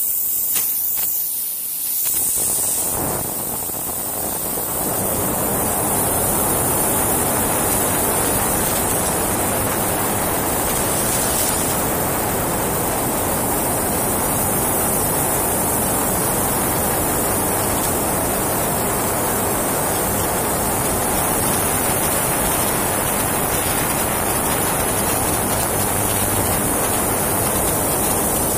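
Industrial pass-through spray washer for screws and bolts running: a steady rush of high-pressure water spray over a constant high hiss, building up over the first few seconds. A few short knocks at the start as metal parts are loaded onto the conveyor.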